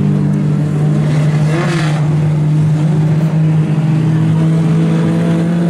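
A pack of mini stock race cars' engines running together at pace speed under caution, a loud, steady engine note with little change in pitch.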